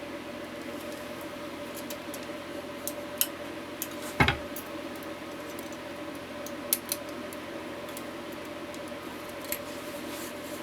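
Light clicks and taps of small parts and tools being handled on a workbench, with one louder knock about four seconds in, over a steady hum.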